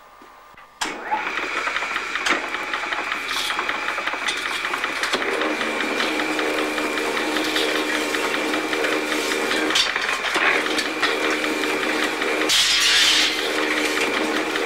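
Old flywheel engine and its belt-driven machinery running, with a steady high whine and a deeper hum that breaks off and comes back every couple of seconds. The sound starts suddenly just under a second in, and near the end a brief, louder rushing noise rises over it.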